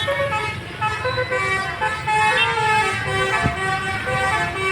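Indonesian bus 'telolet' horn, a multi-tone air horn playing a quick melody, its notes stepping up and down every fraction of a second.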